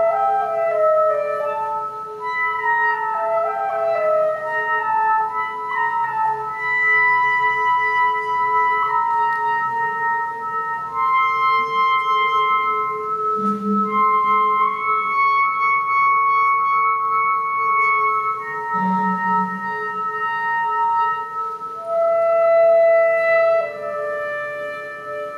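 Improvised clarinet playing over a steady electronic drone, picked up by a camera's microphone. The clarinet plays quick falling runs of notes at first, then longer held notes stepping up and down.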